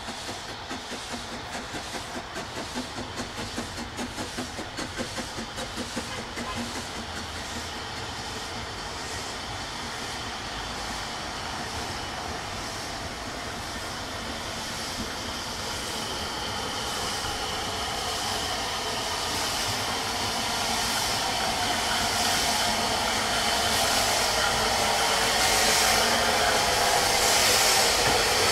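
Narrow-gauge steam train running, with regular exhaust beats about twice a second for the first six seconds. These give way to a steady rushing hiss that grows louder toward the end.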